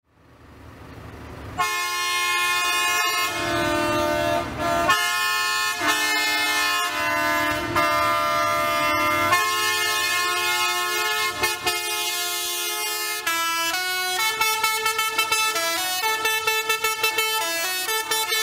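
Several tractor horns honking together at different pitches in long overlapping blasts, fading in at the start. From about thirteen seconds in they change to quick repeated toots, several a second.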